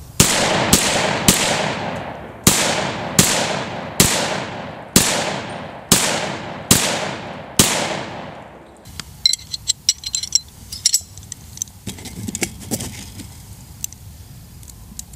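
Ten rapid pistol shots from a ported (compensated) Glock 31C in .357 SIG, firing hot Power Pistol handloads, over about seven and a half seconds, each shot ringing out in a long fading echo. Light clicks and rattles of handling follow near the end.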